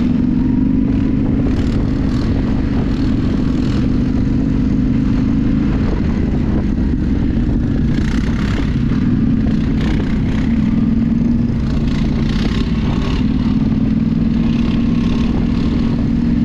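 Yamaha Ténéré 700's parallel-twin engine running steadily close to the microphone, with wind noise, while an ATV engine is worked for wheelies ahead. There are louder bursts about eight and twelve seconds in.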